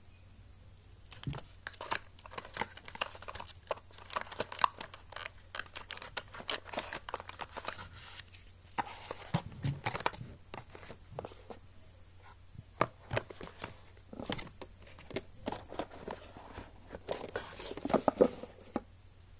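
Cardboard phone box and paper leaflets handled by hand: rustling and crinkling with many sharp taps and clicks, starting about a second in and busiest near the end.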